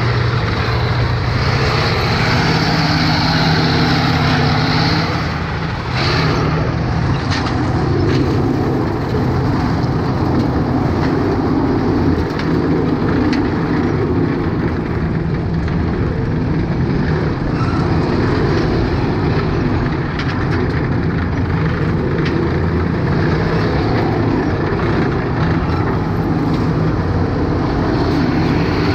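M-84 main battle tank's V12 diesel engine running steadily as the tank drives on gravel, with its tracks grinding over the stones.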